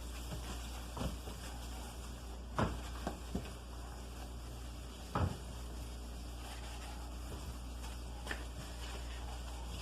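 A few scattered soft knocks and clicks over a low steady hum: household items being handled and set down while a refrigerator is cleaned out.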